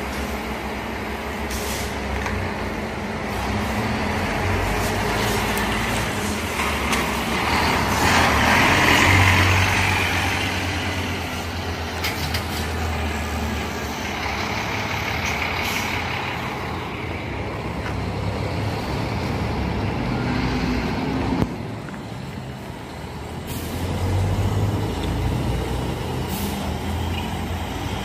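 Diesel coach buses running as they move off, their engine rumble swelling twice, with bursts of air-brake hiss and a single sharp click about two-thirds of the way through.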